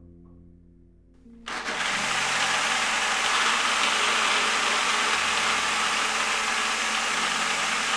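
Countertop blender switched on about one and a half seconds in, then running steadily at full speed as it grinds soaked almonds in water.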